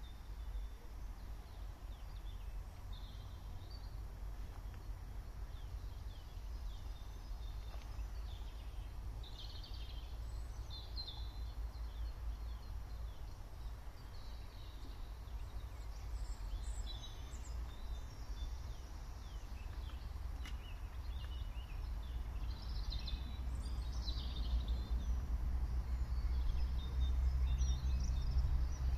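Small birds chirping and singing in short, scattered calls, over a steady low rumble that grows louder near the end.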